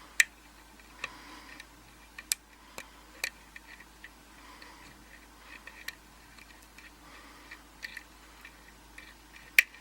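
Irregular small metallic clicks and ticks of a lock pick and tension wrench working the pins of a Russwin rim lock cylinder fitted with security pins. The sharpest clicks come just after the start and near the end, with fainter ones scattered between.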